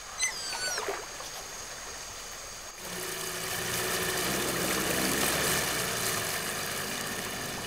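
Running water trickling and lapping, with a few high gliding chirps in the first second. About three seconds in, the outboard motor of a dugout canoe starts to be heard, running at a steady pitch and growing louder.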